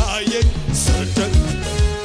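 Live gospel band playing an upbeat mezmur groove: kick drum on a steady beat about two and a half times a second under bass guitar, electric guitar and keyboard.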